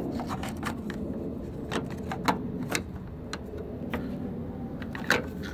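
Sharp, irregular plastic clicks and taps as a small part with three snap clips is handled and pressed into place on a 2003 Chevrolet Silverado's wiper motor assembly, the loudest click about two seconds in and another near the end. A steady low hum runs underneath.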